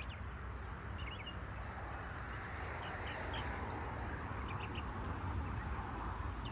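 Outdoor ambience: a steady low rumble and hiss, with a few short bird chirps about a second in, around three seconds in and again near five seconds.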